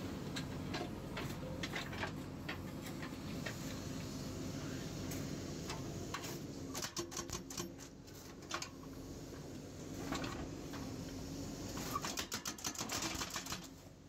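Hydraulic breaker on a JCB 3DX backhoe loader hammering concrete in two bursts of rapid, evenly spaced strikes, about halfway through and near the end, over the backhoe's diesel engine running steadily.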